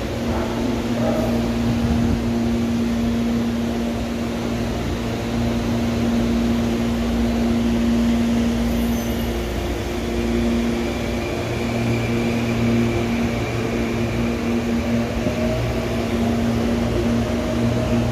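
CPTM electric commuter train at the platform, humming steadily with a low drone and two held tones. A faint higher whine joins about halfway through.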